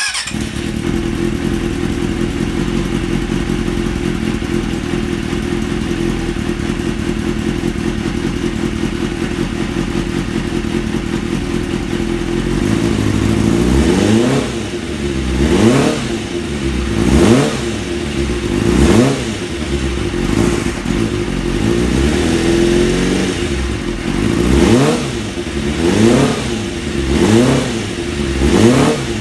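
Kawasaki ZXR inline-four motorcycle engine with its airbox off, idling steadily, then from about halfway through blipped again and again, each rev rising and dropping back to idle without stalling. It is a throttle test after carburettor adjustment, meant to cure the engine wanting to die when given throttle.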